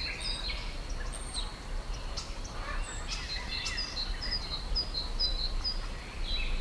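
Countryside ambience of small birds chirping and calling, with one bird repeating a short high chirp a few times a second in the second half, over a steady low rumble.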